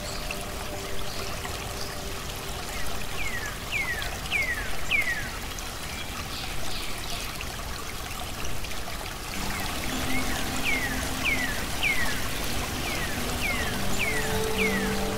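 Calm background music with long held notes over a steady sound of trickling water. Runs of four or five short falling chirps, about two a second, come twice, with new held notes entering about two-thirds of the way through.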